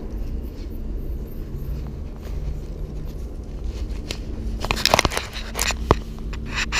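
Crinkly rustling and crackling close to the microphone, in several bursts from about four and a half seconds in, over a low steady rumble of wind and handling noise.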